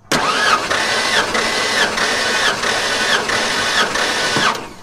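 1994 Ford F-150 engine being cranked over by its starter motor with the ignition disabled, for a compression test. The cranking runs steadily with a rhythmic rise and fall about every two-thirds of a second, about seven cycles, and stops shortly before the end.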